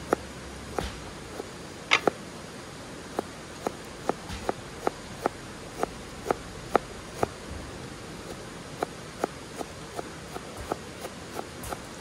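Small knife cutting through a crisp vegetable held in the hand, a sharp snick with each cut, about two cuts a second.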